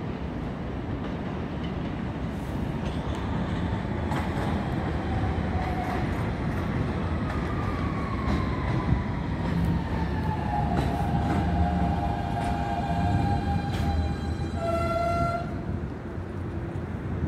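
R160 subway train pulling into an elevated station: steady rumble of wheels on the rails, with the traction motors' whine falling in pitch as it brakes. A brief high tone sounds near the end.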